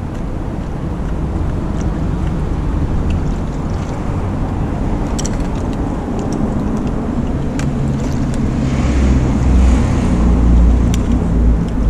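Steady low rumble of fast-flowing river water, swelling and splashing more strongly about nine seconds in, with a few faint clicks.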